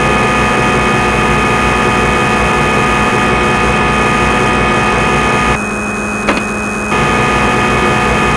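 CNC lathe running with a steady, even machine hum carrying several fixed tones. About five and a half seconds in the sound drops back for a moment, a sharp click comes, and then the full hum resumes.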